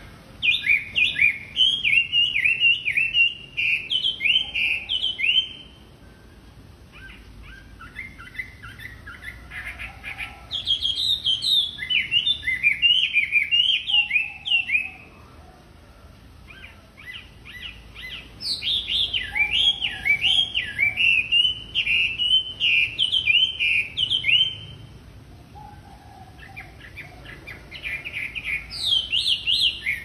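Chinese hwamei (wambi) singing: loud phrases of rapid, repeated down-slurred whistled notes, each lasting four to six seconds, with a softer, lower passage about a quarter of the way in and pauses of a few seconds between phrases.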